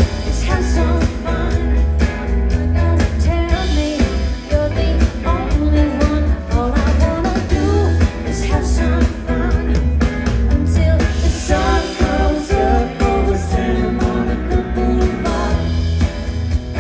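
A live band playing a pop song: a lead voice singing over heavy bass and drum hits.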